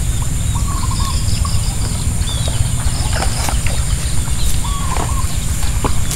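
Wind rumbling on the microphone, with birds chirping a few short phrases over it and a steady high-pitched drone.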